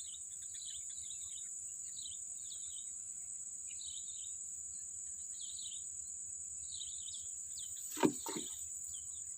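Insects droning steadily at a high pitch, with short chirps repeating every half second or so. A brief sharp sound stands out about eight seconds in.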